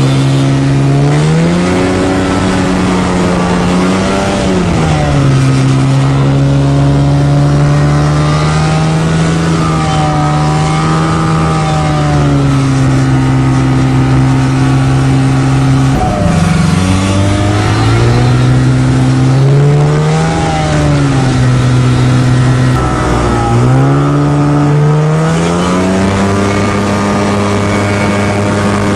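Light aircraft's piston engine and propeller heard from inside the cabin, revving up and down several times as the plane works to break free of sticky snow. The revs climb and hold high near the end as it gets moving.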